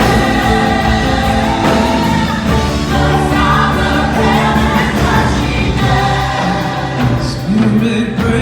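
Gospel song with a choir singing held notes over a band with a steady bass and beat.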